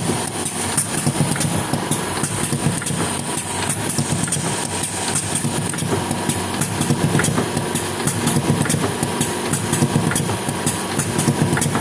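Engine of a GOLDONE Speed 15 machine idling steadily, with many short clicks over the engine note.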